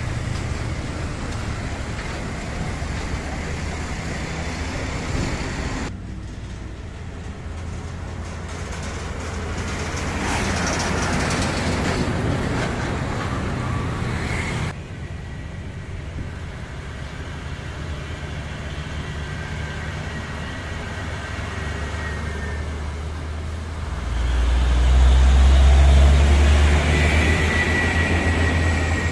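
Heavy diesel trucks passing in street traffic, their engines running with road noise. Loudest near the end, when a Hino 500 Ranger concrete mixer truck's diesel engine passes close by with a deep, strong low sound and a thin steady high squeal.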